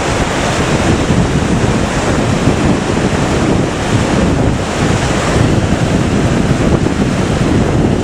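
Loud, unsteady wind noise buffeting the microphone outdoors.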